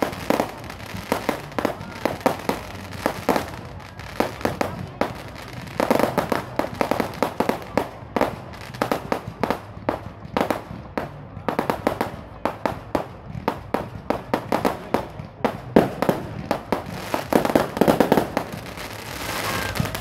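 Fireworks display: aerial shells and crackling effects going off in a rapid, continuous string of bangs and crackles.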